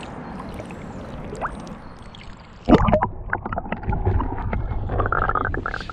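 River water lapping and gurgling around a camera held at the waterline, then, from just under halfway through, a sudden louder plunge into bubbling, crackling underwater water noise as the camera goes under the surface.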